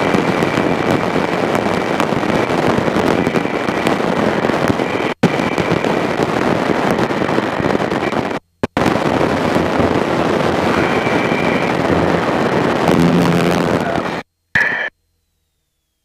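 Cockpit noise of a Thorp T-18 in flight: engine, propeller and rushing air, picked up by an on-board camera microphone as a loud, crackly, even roar. It is cut off abruptly about five and eight seconds in, and it stops dead a little before the end.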